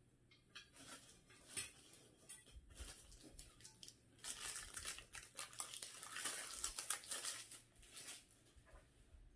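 Small clear plastic parts bag crinkling and rustling as it is handled and opened, loudest from about four to eight seconds in, after a few light clicks and knocks of plastic parts being handled.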